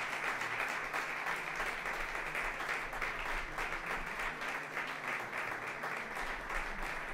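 An audience applauding, a steady patter of many hands clapping at once, at the close of a lecture.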